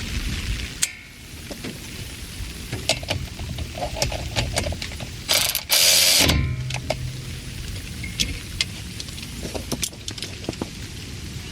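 Hand ratchet wrench clicking in short runs as brake bolts are tightened, with scattered metal clicks from tools. A loud burst of noise about a second long comes roughly halfway through.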